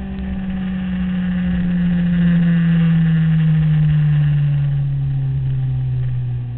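Sport motorcycle engine running in gear, its note falling steadily as the bike slows going into a bend, with wind buffeting on the microphone.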